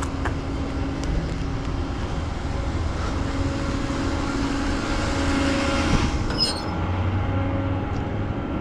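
A flatbed tow truck's engine running steadily, a low, even mechanical hum with a few held tones, and one short clink about six and a half seconds in.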